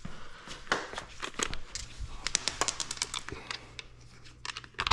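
Close handling noise: rapid rustling with many small clicks and knocks, and a sharper knock near the end.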